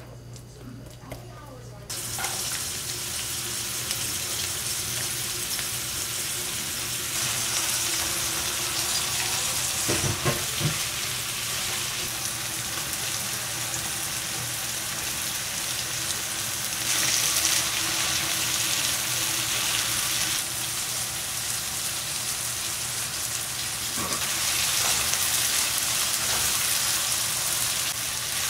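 Chopped onions sizzling in oil in a frying pan, stirred with a silicone spatula, with a few knocks of the spatula on the pan about ten seconds in. The hiss starts about two seconds in, after a wooden spoon clicks against a small bowl of seasoning sauce.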